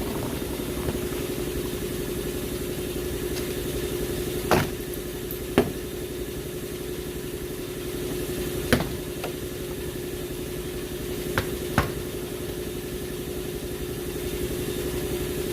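A steady engine-like hum with about five sharp clicks and knocks spread through it, two close together near the end, from car door trim pieces and tools being worked by hand.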